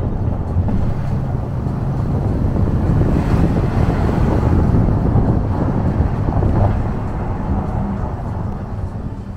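Car driving along a rough, bad road: steady engine hum and road rumble.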